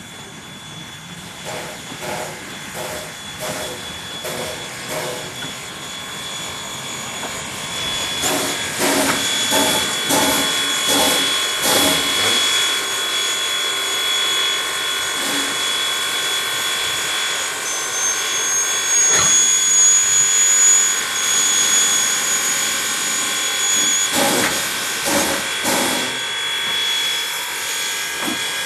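Steam locomotive working, its exhaust chuffing at about two beats a second, with a steady hiss of steam; the sound grows louder over the first several seconds. A thin high steady tone sounds for several seconds past the middle.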